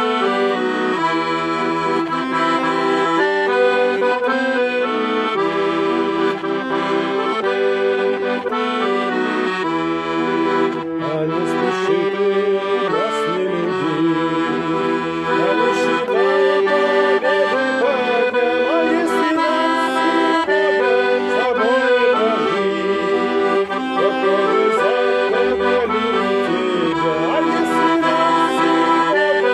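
Weltmeister chromatic button accordion playing a melody over chords, with a man's voice singing along from a little before halfway.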